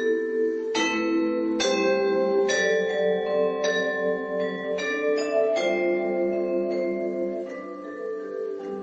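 Vibraphone played with four mallets: a slow piece of struck chords, about one a second, each ringing on and overlapping the next as the sustain pedal is held.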